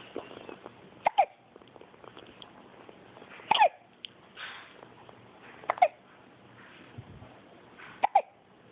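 A baby hiccuping four times, every two to two and a half seconds. Each hiccup is a short, sharp catch that drops in pitch.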